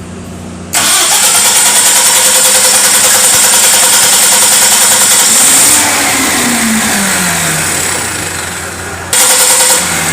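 Cummins 6BTA5.9 turbocharged inline-six diesel being cranked to start: a loud steady churn with a quick pulse that begins under a second in, eases after about six seconds, and surges briefly again near the end. It is a long crank, the hard-starting condition this engine has.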